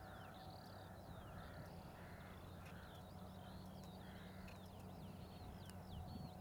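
Distant crows cawing in a run of harsh calls, about two a second, that stops a little past the middle. Small songbirds twitter in short high chirps throughout.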